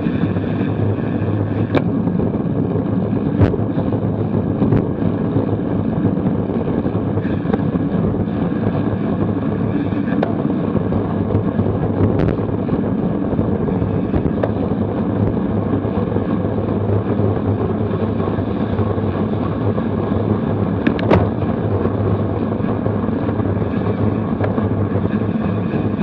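Steady rush of wind on the microphone of a road bicycle's camera riding at race speed on a wet road, with a few sharp clicks along the way.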